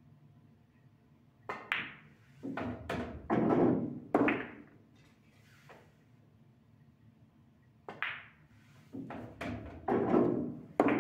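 Pool balls in play: two shots about six seconds apart. Each is a cluster of sharp clacks (cue tip on cue ball, ball on ball) followed by a longer rolling rumble as the object ball drops into a pocket and runs down the table's ball-return channel.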